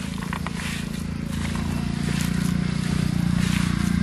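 Hands squishing and kneading minced beef with chopped green chilies on a steel tray, giving soft wet squelches. Under it runs a low steady motor drone, the loudest sound, which swells toward the middle and eases near the end.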